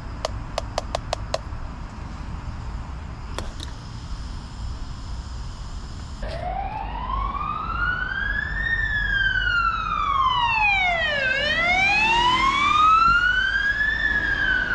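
Emergency vehicle siren wailing, its pitch slowly rising and falling twice, starting about six seconds in over a steady low road-traffic rumble. A quick run of light clicks near the start.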